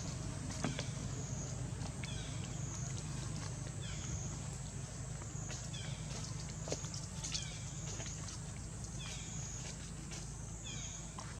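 Outdoor ambience with a steady high insect-like drone and a short, high, falling call repeating about every one and a half to two seconds, with a low steady rumble underneath.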